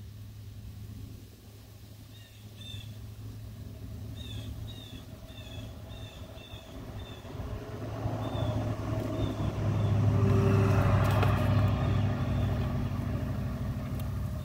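A motor vehicle passing by, growing louder to a peak about ten seconds in and then fading, over a steady low hum. Small birds chirp in short repeated notes during the first half.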